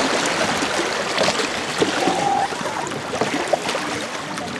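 River water rushing and splashing over a shallow rapid around inflatable canoes, with paddles dipping into the water.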